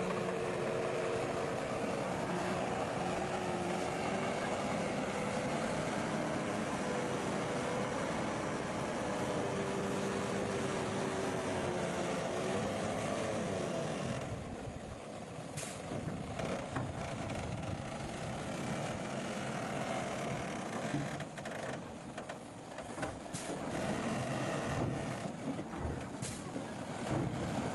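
Komatsu bulldozer's diesel engine running steadily, its note shifting about halfway through, with several sharp knocks in the second half.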